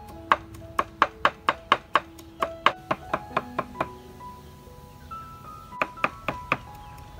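A cleaver chopping garlic on a thick round wooden chopping board: sharp knocks about four a second that stop briefly a little past the middle, then start again, over background music of held notes.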